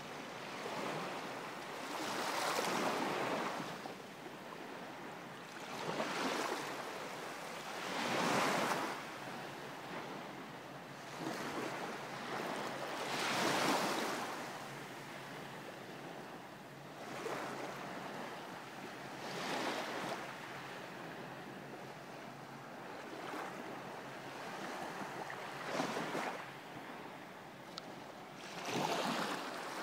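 Small waves washing in one after another, a rushing hiss of water that swells and falls away every three to five seconds. The strongest surges come about a third and about halfway through.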